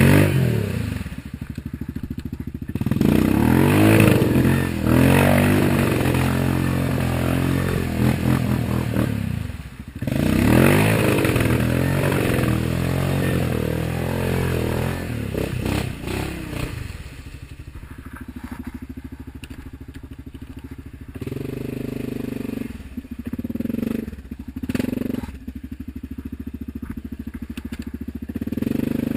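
Yamaha Grizzly 550 ATV single-cylinder engine with a Barker's slip-on exhaust, revving hard in long rising and falling surges as the quad pushes through deep muddy water, with water churning and splashing around it. After about 17 seconds it settles to a low, steady idle with a few short blips of throttle.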